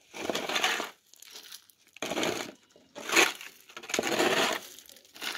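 Metal shovel blade scraping and scooping gravel and dirt out of a concrete gutter, in about five rough scrapes roughly a second apart.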